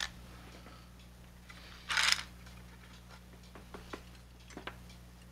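Faint clicks and taps of small die-cast toy car parts being handled on a cutting mat, with one short hiss-like rustle about two seconds in, over a low steady hum.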